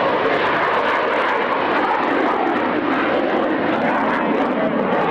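Jet aircraft engine running as the jet climbs overhead: a steady, loud noise.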